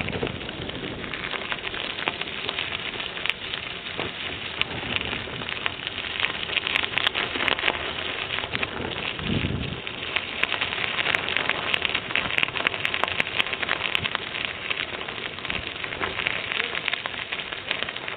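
Bicycle tyres rolling over a forest trail, a steady crunching and crackling with many small clicks. A short low thump comes about halfway through.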